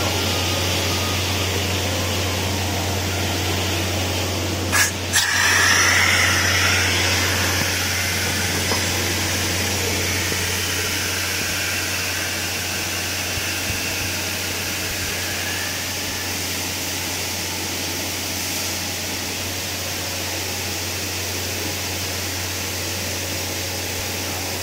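Steady low hum and noise of running machinery, with a sharp knock about five seconds in followed by a brief hiss.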